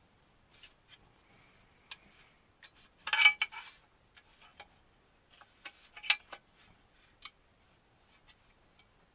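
Small hard clicks and taps of screws and a driver being handled on a model chassis plate, with a louder brief clatter about three seconds in and another short cluster near six seconds.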